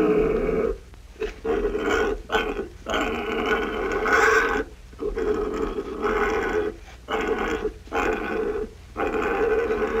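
Domestic pig grunting: a quick series of about a dozen rough grunts of varying length, some short and some drawn out, with brief gaps between them.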